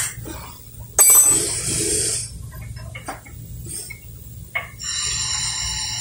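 Small metallic clinks and handling noise of work under a car, with a sudden loud hissing burst lasting about a second, about a second in. Music starts near the end.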